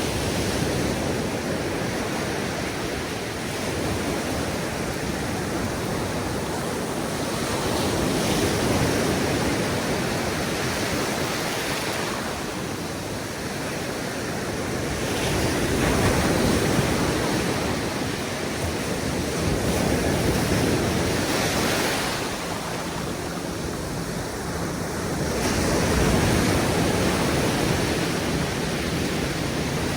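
Atlantic surf breaking on a sandy beach: a continuous wash of waves that swells louder every several seconds as sets come in.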